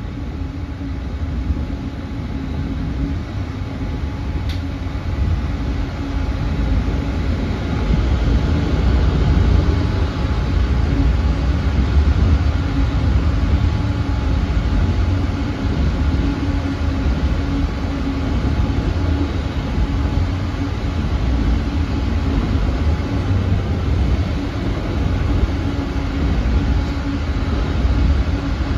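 Freight train of autorack cars rolling past at speed: a steady rumble and rattle of wheels on rail, growing louder about eight seconds in.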